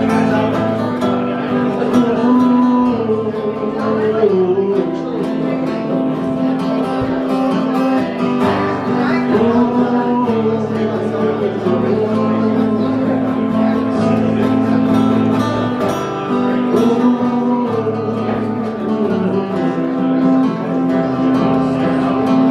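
Two acoustic guitars played together live, strummed in a steady accompaniment.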